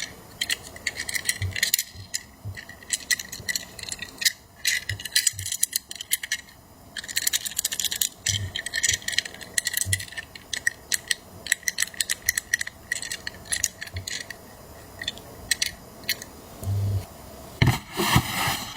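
Small diecast toy vehicles and their packaging being handled, making rapid irregular clicks, taps and light rattles. A louder, denser clatter starts near the end.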